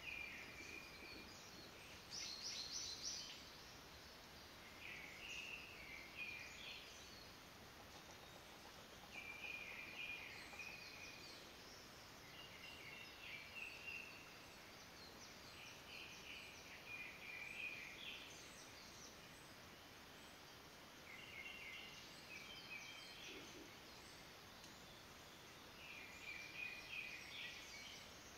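Faint songbird singing short chattering phrases, repeated roughly every three to four seconds, over a steady woodland background hiss.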